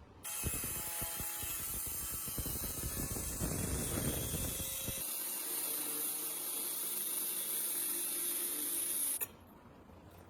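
A small power tool running on a part for about nine seconds, rough and rumbling at first, then steadier with a low hum. It cuts off suddenly near the end.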